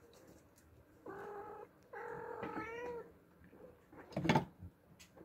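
An Oriental cat gives two drawn-out meows, the second longer and bending in pitch. A loud, sudden knock follows about four seconds in.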